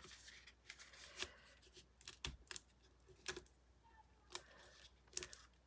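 Faint handling of paper cardstock: light rustles and a scattered series of small clicks and taps as die-cut card pieces are handled and pressed down by hand.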